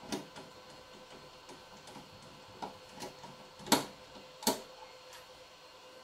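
A run of sharp clicks and knocks from parts of a crypto miner's metal case being handled and fitted during reassembly. The two loudest knocks come a little past the middle, under a second apart. A faint steady hum sits underneath.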